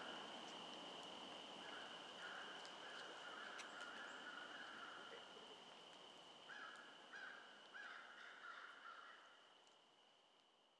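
Faint outdoor ambience: a steady high whine with a bird calling in runs of short repeated notes, several in a row, that stop about two-thirds of the way in. The sound fades out toward the end.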